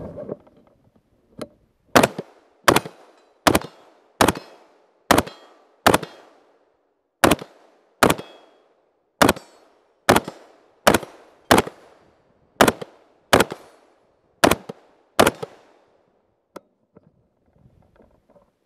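BCM Jack Carbine, a 5.56 mm AR-15 with a 14.5-inch barrel and compensator, fired semi-automatically: about sixteen sharp shots at a steady pace of roughly one every 0.8 seconds, with a couple of brief pauses, each followed by a short echo.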